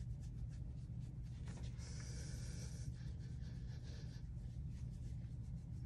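Makeup brush buffing cream concealer into the skin of the face: soft, repeated scratchy brushing strokes, with a longer stroke about two seconds in, over a steady low hum.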